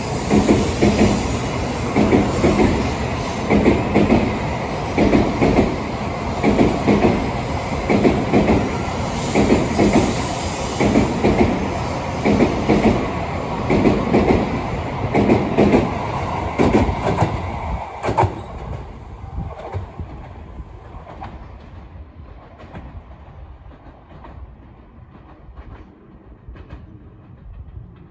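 N700A Shinkansen train pulling out of the station alongside the platform. Its wheels clatter in a steady rhythm as each car's wheel sets pass, about one beat every 0.7 seconds. About 18 seconds in, the last car goes by and the sound quickly fades to a distant rumble.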